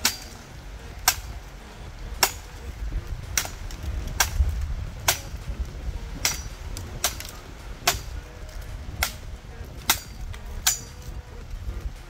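Machete chopping into a branch of a fallen tree: sharp strikes, about one a second, over a low rumble.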